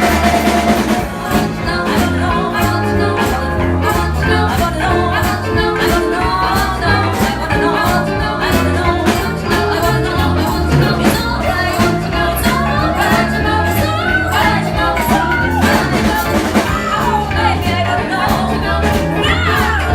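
Live band playing a rock song, with a steady drum beat and bass under singing.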